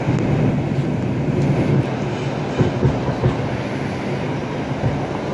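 New York City subway 4 train running through a tunnel, heard from inside the car: a steady rumble of wheels and motors, with a few louder knocks about halfway through.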